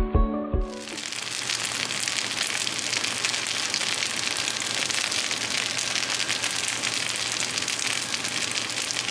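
Rice frying in a non-stick frying pan: a steady sizzling hiss with fine crackles. Background music cuts out under a second in.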